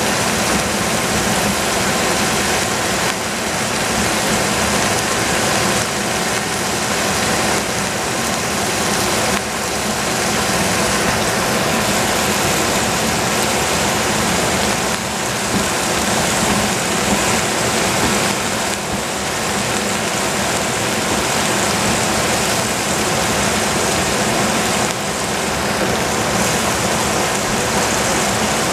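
Steady rushing noise of a pot of vegetables cooking on the stovetop, with a faint steady hum under it and a few brief dips in level.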